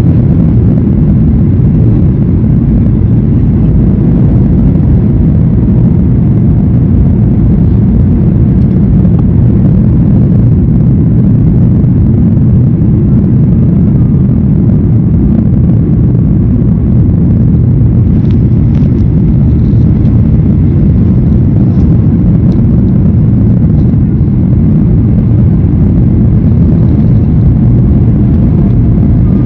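Boeing 737 airliner heard from inside the passenger cabin: a loud, steady low rumble of the jet engines and rushing air.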